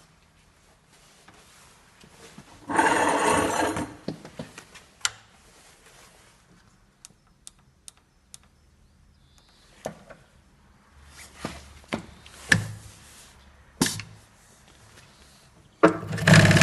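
Knocks, clicks and thunks from handling a Dürkopp 667 heavy-duty upholstery sewing machine, with one loud rough noise lasting about a second early on. Just before the end the machine starts running.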